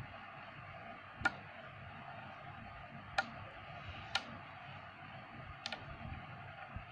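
Neodymium magnet balls clicking as they snap together, four sharp clicks about one to two seconds apart, over a steady faint hiss.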